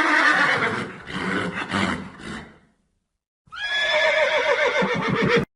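Horse whinnying twice: a long, rough neigh that fades out, then after a short pause a second whinny that quavers and falls in pitch.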